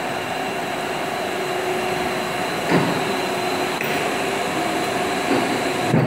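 Double-wall corrugated plastic pipe extrusion line running: steady machine noise with a low hum and a faint high whine, broken by a few brief low thumps.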